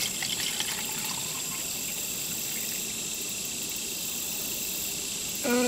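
Water poured in a steady stream from a stainless steel camping pot into a stainless steel mug, about 750 millilitres, with insects chirping steadily in the background. Right at the end a loud, held pitched sound begins.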